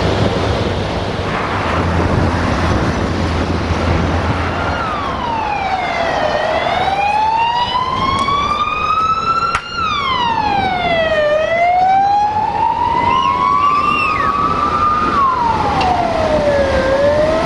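An emergency vehicle's wailing siren starts about five seconds in. Its pitch glides down and then slowly climbs back up, about every five seconds, over steady street and vehicle noise. Before it starts there is a low hum and rumble.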